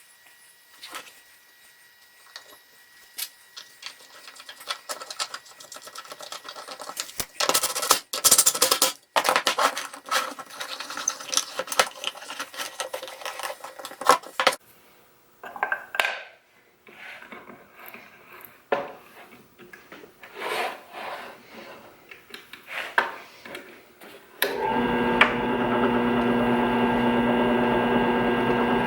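Wooden parts being handled, slid and rubbed against each other, with scattered knocks and clicks. About 24 seconds in an electric power-tool motor switches on and runs steadily.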